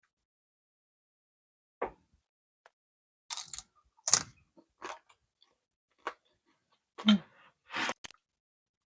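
A series of short clicks, taps and rustles from dishes, utensils and food being handled while nachos are topped, about eight of them with silence in between.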